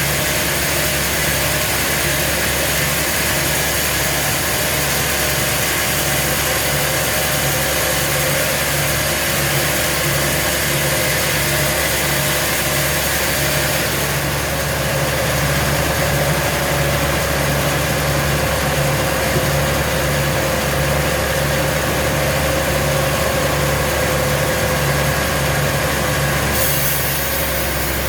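Sawmill machinery running steadily, a continuous engine-like drone with a slight change in tone about halfway through and again near the end.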